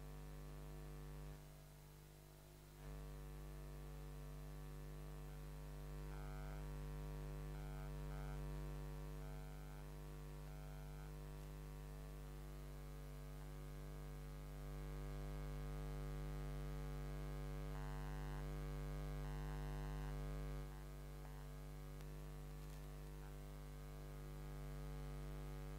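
Steady electrical mains hum with a stack of overtones. It dips briefly just after the start and steps up and down in level a couple of times.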